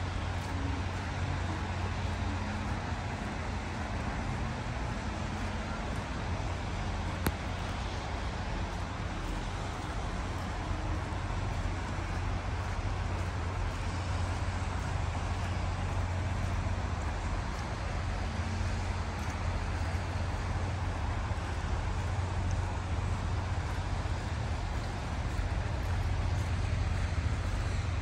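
Steady outdoor city ambience: a constant low rumble and hiss of road traffic, with no clear single event.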